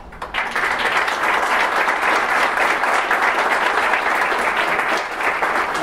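Audience applauding, the clapping starting a moment in.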